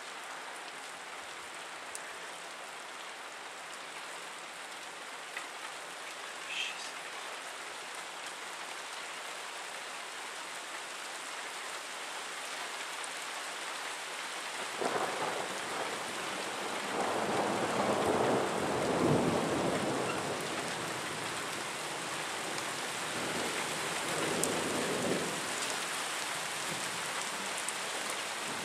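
Steady rain hissing, with a long roll of thunder that starts about halfway through and is loudest a few seconds later, then a second, weaker rumble near the end.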